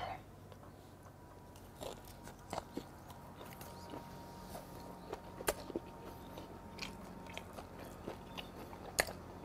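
A man chewing a mouthful of grilled hagfish close to the microphone: scattered soft clicks and smacks of chewing, with no words.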